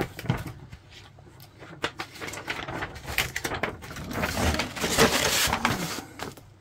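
Large folded paper sheet rustling and crinkling as it is unfolded and smoothed flat by hand. It comes in bursts of quick crackles that grow busier and louder in the second half, then die away near the end.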